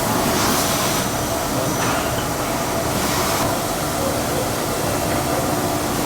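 Steady drone of automated screen-protector glass-processing machinery running, with a faint hum and a few brief hisses in the first few seconds.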